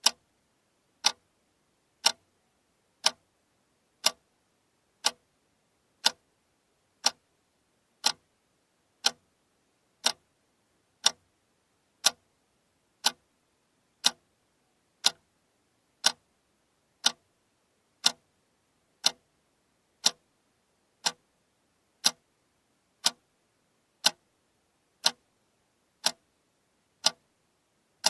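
Alarm clock ticking steadily, one sharp tick each second.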